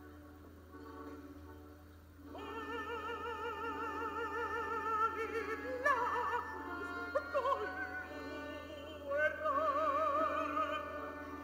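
Operatic singing: a high voice holds long notes with wide vibrato, coming in about two seconds in over soft sustained accompaniment.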